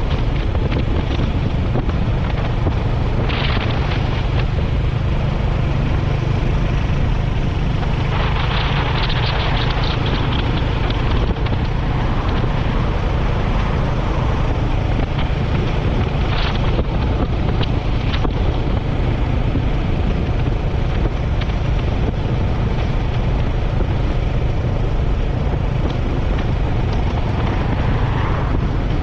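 Royal Enfield Hunter 350's single-cylinder engine running steadily while riding, under heavy wind noise on the microphone, with a few brief louder rushes of air.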